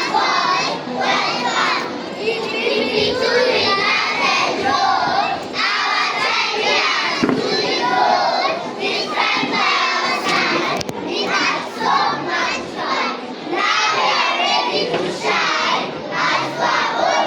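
A group of children shouting and chattering, with many high-pitched voices overlapping without a break.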